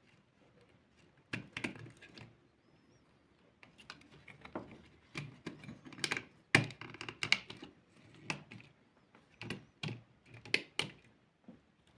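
Irregular small clicks and taps of hard toy car parts being handled and fitted, some in quick clusters.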